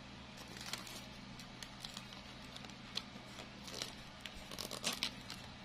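Crinkling and rustling of a handmade artificial flower bunch, its clear plastic petals and stiff leaves, as it is handled and turned. Irregular small crackles, busiest about four to five seconds in.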